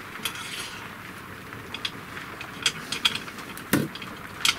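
Small metal clicks and taps as slider nuts are fed into the slots of an aluminium CNC router bed, with one louder knock a little before the end.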